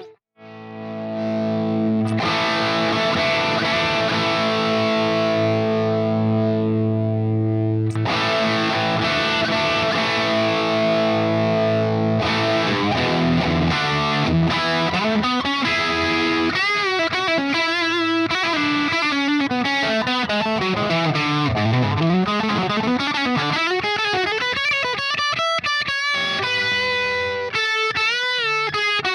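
Distorted electric guitar played through a 1974 Marshall JMP Super Bass valve amplifier. After a brief gap, two long ringing chords give way about twelve seconds in to a lead line of single notes with wide vibrato and long pitch slides down and back up.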